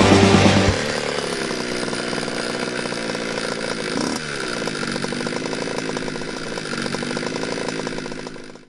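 Rock music stops about a second in, giving way to a small motorcycle engine running with its pitch slowly wavering. It is blipped once in a quick rise and fall just after four seconds, then fades out near the end.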